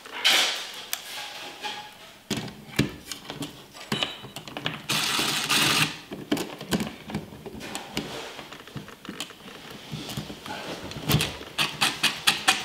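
Cordless impact driver with a Phillips bit driving the mounting screws of a GFCI thermostat into a wall electrical box: a burst of driving about five seconds in and short bursts with quick clicks near the end, with tapping and handling of the device in between.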